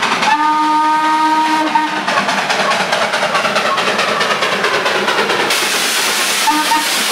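Darjeeling Himalayan Railway narrow-gauge saddle-tank steam locomotive sounding its steam whistle, one chord held for about two seconds, then a short toot near the end. Under it runs a steady hiss of escaping steam, which grows louder in the second half.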